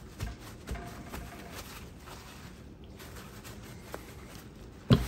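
Paper towels rustling and patting against a raw whole chicken as it is dried by hand, with a few soft knocks and one sharp thump near the end.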